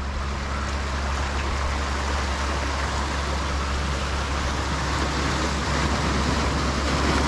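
Steady outdoor background noise: a constant low hum under an even rushing hiss, like moving water or wind, with no single distinct event.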